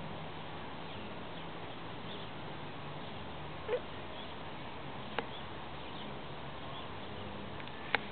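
Hand pruners snipping side roots off an apple tree root: two sharp clicks in the second half, with a short squeak a little before the middle, over a steady background hiss.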